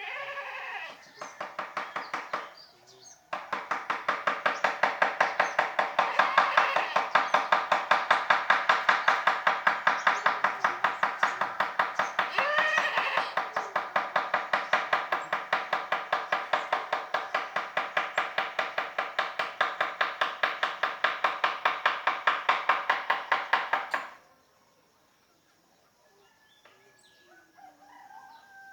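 Mallet striking a carving chisel into teak wood: a fast, even run of taps that stops suddenly about 24 seconds in. Farm animals can be heard calling faintly.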